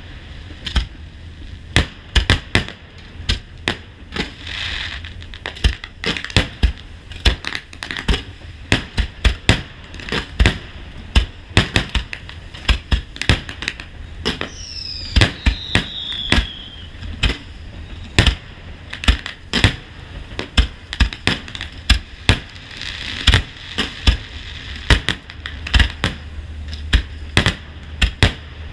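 Fireworks display: a dense, irregular volley of shell bursts and reports, several cracks a second. A falling whistle comes about halfway through.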